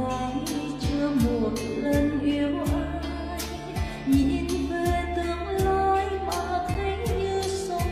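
A woman singing a song into a microphone over a backing track with a steady drum beat and bass.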